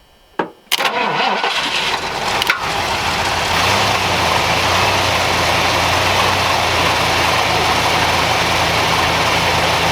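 A Ford gas work truck's engine cranking and catching about a second in, running unevenly for a couple of seconds, then settling into a steady idle. It is a cold start of a truck whose starter had stopped working, brought back to life with a jump.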